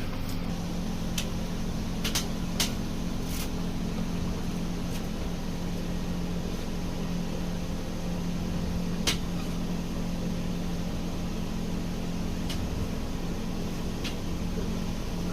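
A steady low machine hum, with a handful of short sharp clicks scattered through it, the most prominent about nine seconds in.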